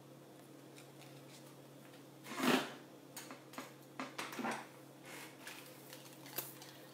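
A short swishing sound about two and a half seconds in, then a few light clicks of jewelry being handled, over a low steady hum.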